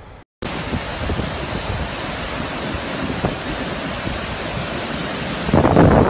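Steady roar of muddy floodwater rushing and pouring over rock ledges, loud at close range, swelling louder near the end.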